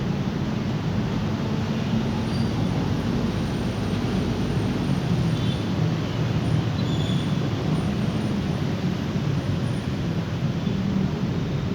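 Steady rumble of distant road traffic, an even, unbroken noise with no single event standing out.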